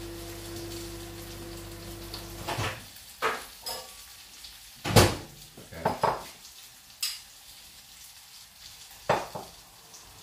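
A steady hum runs and stops about two and a half seconds in; then come a series of sharp clinks and knocks of bowls, a small glass dish and utensils handled on a wooden chopping board, the loudest about five seconds in.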